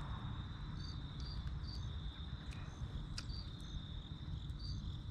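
Evening insects: a steady high trill with short chirps repeating above it every half second to a second, over a steady low rumble. A few faint clicks come through.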